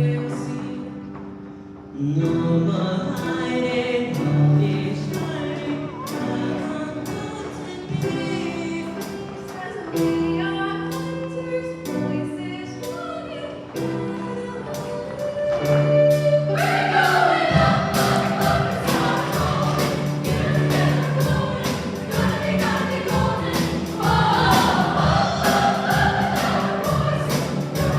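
A choir singing with accompaniment in sustained chords; about two-thirds of the way through, the singing gets fuller and louder and a steady beat of sharp ticks joins in.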